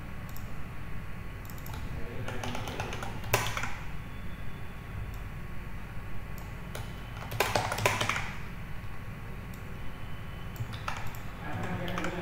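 Computer keyboard typing in several short bursts of keystrokes as code is edited, over a steady low background hum.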